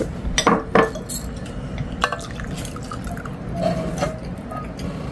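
Ramen broth poured from a small pot into a cup, liquid trickling and dripping, with a few sharp clinks of dishes near the start and at about two seconds.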